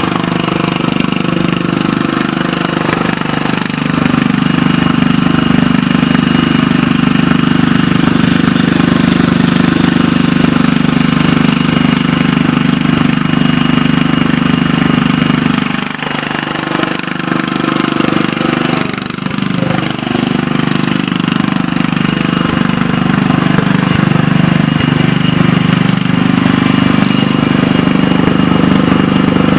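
John Deere 185 riding lawn tractor's engine running steadily as it drives, easing off briefly a couple of times past the middle.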